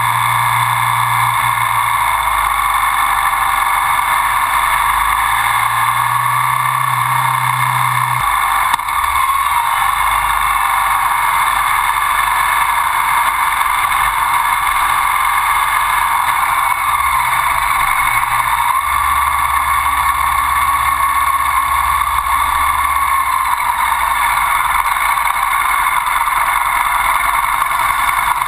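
Ducati Sport 1000's air-cooled L-twin engine running steadily as the motorcycle is ridden, heard from a camera mounted on the bike beside the front fork.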